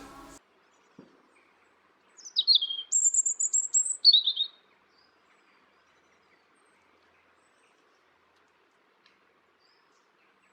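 A songbird sings one short phrase about two seconds in, lasting about two and a half seconds: a few quick falling notes, a high fast trill, then a few more falling notes.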